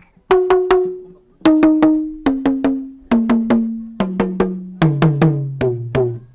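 Intro music of short, struck, pitched notes in quick groups of three, each group a step lower in pitch than the last, so the line descends steadily.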